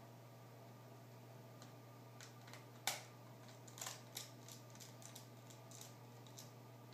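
Faint small clicks and taps of tiny screws and a screwdriver being handled while the screws holding a netbook's screen are taken out. One sharper click comes about three seconds in and a short run of clicks about a second later, over a faint steady hum.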